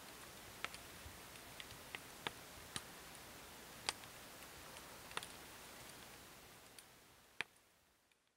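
Faint outdoor ambience: a steady hiss with scattered sharp clicks and ticks at irregular intervals, fading out near the end.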